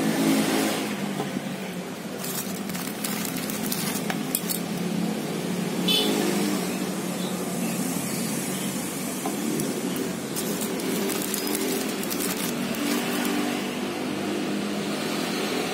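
A steady engine-like drone, like a motor vehicle running close by, with scattered light clicks and rattles of cables and plastic being handled.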